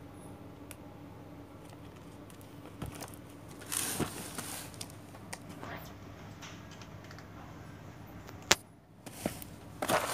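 Taped cardboard shipping parcels being handled: a short rustle and crinkle of the wrapping about four seconds in, a single sharp click about eight and a half seconds in, and more rustling at the end, over a faint steady hum.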